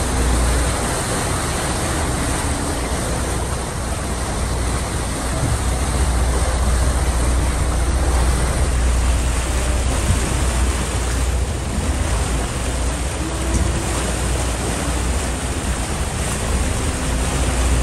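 Steady rush of wind and churning water alongside a moving excursion boat, over a constant low rumble, with wind buffeting the microphone.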